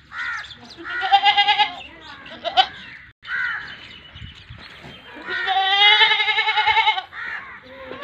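Gulabi-cross Rajanpuri goats bleating: two long, quavering bleats, one about a second in and a louder one from about five seconds in, with shorter calls between.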